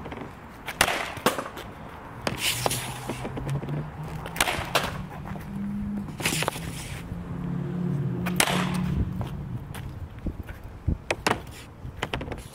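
A Bauer hockey stick slapping pucks off a concrete driveway. It makes a series of sharp cracks every second or two, each with a short scraping swish of the blade on the concrete.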